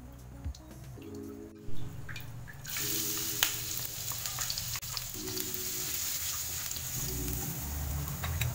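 A sharp knock about two seconds in, then minced garlic sizzling steadily in hot oil in a nonstick frying pan from about three seconds in, as a wooden spatula stirs it. Light background music plays throughout.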